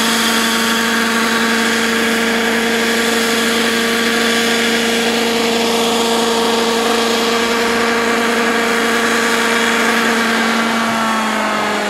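Small engine and rotor of a radio-controlled Eurocopter EC120B model helicopter running at a steady, high pitch as it hovers low. Near the end the pitch starts to fall as the engine winds down.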